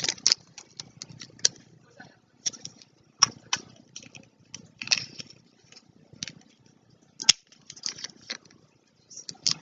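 A blind bag being torn open and handled, with irregular crinkling and rustling, and one sharp click about seven seconds in.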